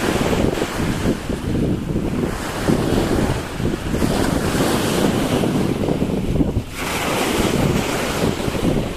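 Ocean surf washing on a beach, with wind buffeting the microphone in uneven gusts.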